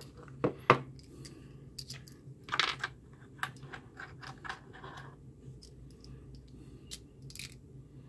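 Small clicks and taps of a plastic 3D-printer extruder housing and its tiny screws being handled and set down on a wooden workbench. A sharp tap a little under a second in is the loudest, with a short rustle and scattered faint ticks after it.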